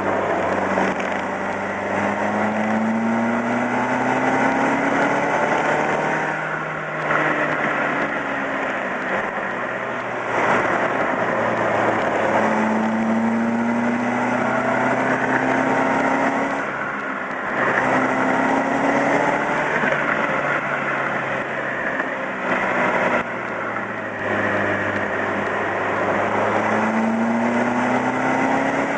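Vehicle engine under way, its pitch climbing steadily for several seconds and then dropping back, a few times over as the throttle is opened and eased through the bends, over constant road and wind noise.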